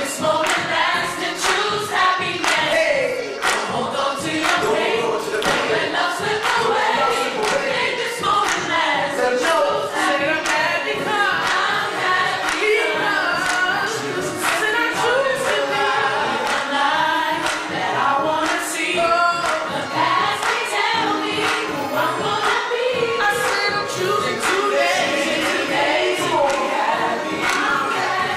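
Youth ensemble singing together as a choir, many voices at once, over a sharp, regular beat.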